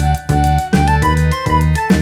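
Upbeat background music with a steady beat and a short, bouncy melody line.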